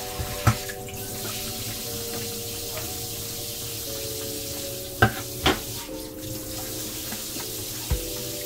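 Kitchen faucet running in spray mode into a stainless steel sink as dishes are rinsed by hand, with a few sharp clinks of dishware about half a second in and twice around five seconds in. Soft background music with held notes plays underneath.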